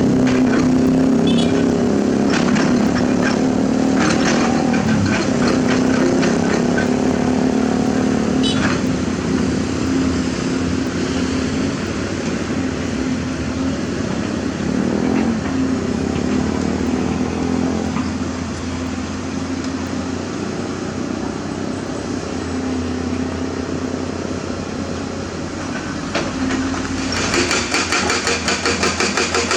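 Hydraulic excavator's diesel engine running steadily under work, with scattered metallic clanks. Near the end a fast, even hammering starts.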